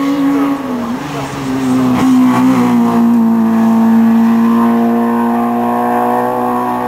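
Small hatchback hill-climb car's engine running hard at high revs. Its pitch dips briefly about a second in and shifts again around two and a half seconds in, then holds nearly steady.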